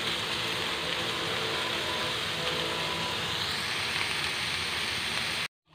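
Cubes of fatty pork sizzling steadily in hot oil in a frying pan as their fat renders out. The sizzle cuts off suddenly just before the end.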